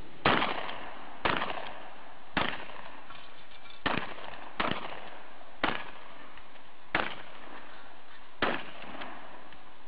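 A shotgun firing eight shots in quick succession, one every second or so in an uneven rhythm, each a sharp report with a short trailing echo.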